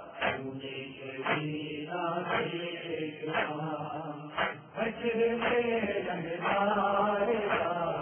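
Nawha chanting by a male reciter, a Shia lament in Urdu, held to a sharp strike about once a second: the beat of matam, hands striking the chest.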